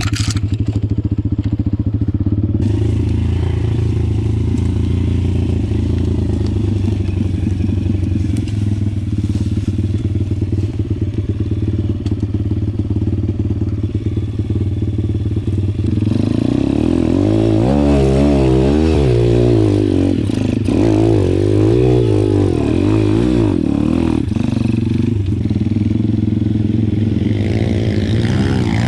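Pit bike engine idling steadily, then revved up and down several times through the second half, with the pitch rising and falling.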